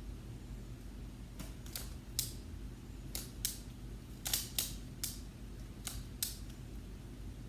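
Skewb puzzle cube being turned quickly by hand during a speed solve: about ten sharp plastic clicks in uneven clusters, some in quick pairs.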